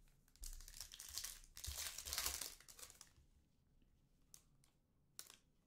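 Trading card pack wrapper being torn open and crinkled for about two and a half seconds, followed by a couple of light clicks as the cards are handled.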